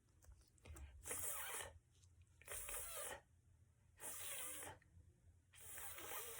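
A woman's voice making an unvoiced, breathy hissing speech sound four times, each lasting well under a second, with pauses between, as in speech-sound practice.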